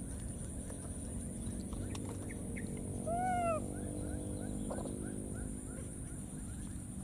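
A baby monkey gives one short coo that rises and falls in pitch, about three seconds in, followed by a run of faint quick chirps.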